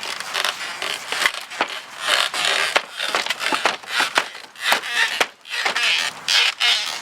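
An old clubhouse porch being torn down: a rapid, irregular string of cracks, knocks and snaps as it is pulled apart, with scraping between them.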